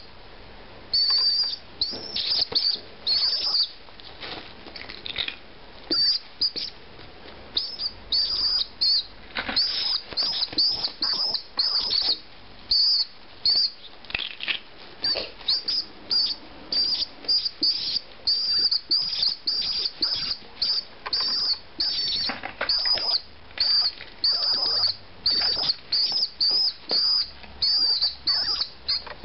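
Young pigeon squab peeping: a long series of short, high, thin cheeps, two or three a second in runs with brief pauses. Occasional rustling comes from the bird being handled and moving on bubble wrap.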